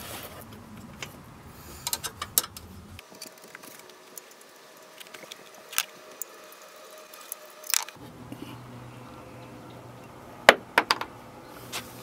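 Scattered metallic clicks and clinks of a 10mm wrench working the exhaust pipe nuts at a scooter's cylinder head, with a quick run of sharper clicks a little before the end.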